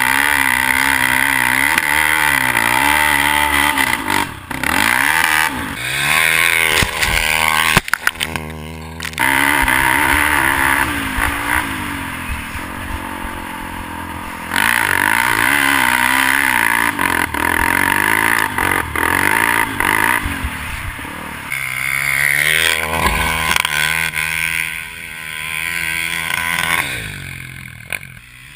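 Polaris Outlaw 450 MXR quad's KTM 450 single-cylinder engine through a Motoworks SR4 slip-on exhaust, revving up and down over and over as it is ridden, with a couple of brief breaks and a drop in level near the end.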